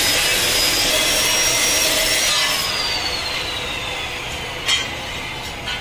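Power tool motor running with a high whine over a loud hiss, then the whine falls steadily in pitch and the sound eases off as the tool winds down, from about two and a half seconds in. Two short knocks near the end.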